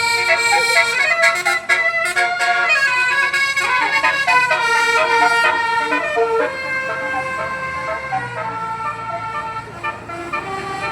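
Telolet-style multi-tone musical horn (basuri horn) playing a tune of held notes that change pitch in steps.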